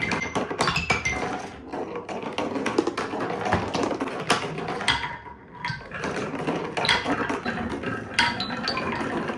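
Marbles rolling and clattering down a plastic TrixTrack marble run, a dense run of clicks and rattles with short ringing tones, easing off briefly about five seconds in.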